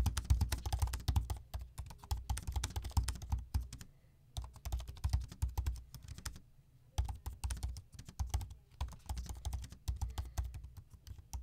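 Fast typing on the keyboard of a 2021 16-inch MacBook Pro, a scissor-switch keyboard rather than the older butterfly design: runs of quiet, not very clicky keystrokes in bursts with short pauses.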